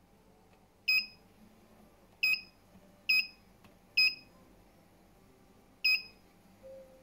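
CashTek ST-8192T banknote counter's touch-screen key beep, sounding at each tap on the screen: five short, high beeps at uneven intervals.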